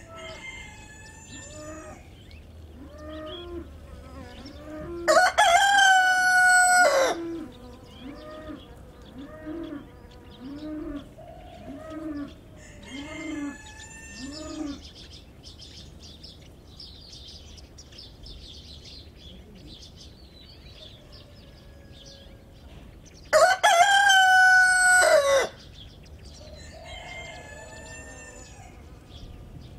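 Roosters crowing: two loud close crows, about five seconds in and again about twenty-three seconds in, each lasting about two seconds, with fainter crows from other roosters farther off in between. Short low calls repeat about once a second through the first half.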